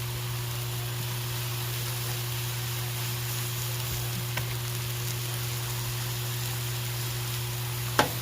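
Steaks and pork chops sizzling on a Blackstone 22-inch griddle: a steady frying hiss over a steady low hum. One sharp clack comes near the end.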